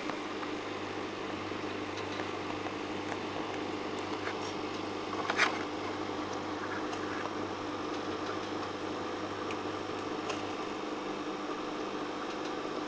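Steady hum and hiss of running aquarium equipment, with one short knock about five seconds in.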